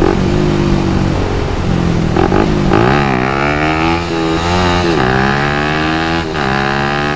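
2011 Suzuki Satria FU's 150 cc single-cylinder engine, running steadily and then revved hard from about three seconds in for a wheelie, its pitch rising, dipping and rising again before it drops back near the end.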